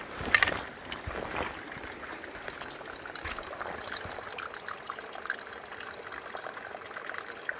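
Small trickle of water splashing and running steadily, with a few knocks in the first second and a half.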